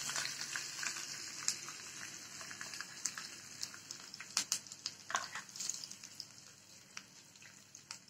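Hot tadka oil with fried garlic, mustard seeds and red chilli sizzling as it is spooned over cooked ambadi bhaji, the sizzle fading away gradually. A few sharp clinks and scrapes of a spoon against the pan and the glass bowl.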